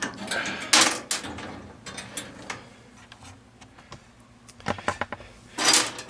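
Metal clicks and scrapes of screws being backed out of the burner mounting brackets of a gas furnace, with two louder scraping sounds, one about a second in and one near the end.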